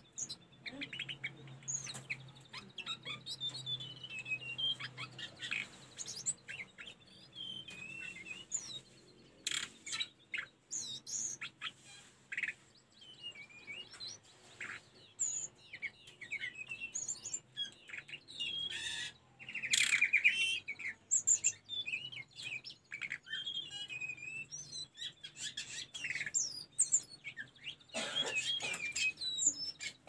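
Hill blue flycatcher singing: a steady run of quick, high whistled phrases and chirps, the loudest a rapid trill about twenty seconds in.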